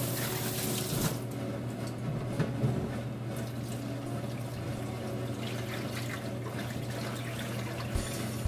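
Water in a pot in a stainless steel sink, swished and scooped by hand as shredded cassava flakes are washed, with a louder rush of water in about the first second. A few light knocks come near the end.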